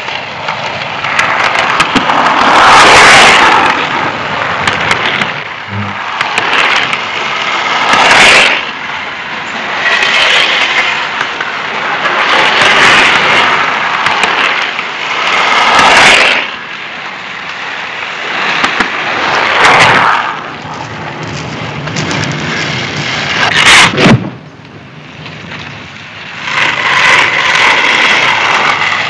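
Skateboards rolling on pavement, the wheel noise swelling and fading as boards pass every few seconds, with a few sharp clacks of a board striking the ground.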